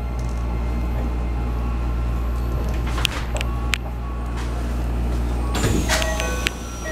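Keikyu New 1000 series train standing at the platform, a steady low hum from its onboard equipment with a few sharp clicks. About five and a half seconds in, the doors open with a burst of air, and electronic chime tones start near the end.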